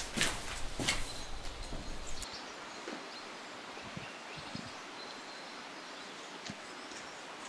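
A couple of footsteps on a hard indoor floor over a low hum. About two seconds in, it cuts to quiet outdoor ambience with a few faint footsteps on grass and light rustling.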